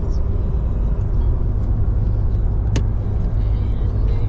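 Steady low rumble of a car driving on the road, with one sharp click a little past halfway through.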